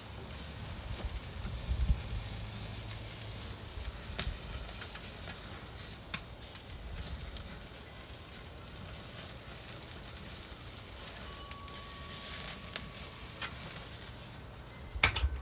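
Spatchcocked chicken sizzling steadily on a hot grill, skin crisping, with occasional sharp pops of spitting fat. A louder knock near the end.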